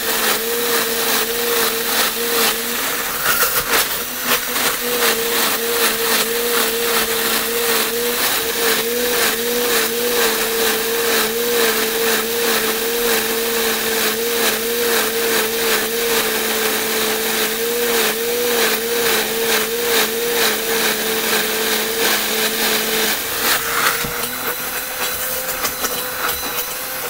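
Bamix hand blender running on its high setting in a plastic bowl of Yorkshire pudding batter, whipping air into the mix: a steady motor whine that wavers slightly in pitch.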